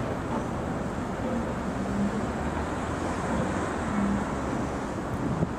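Steady outdoor traffic and railway noise, with a faint low hum coming and going twice.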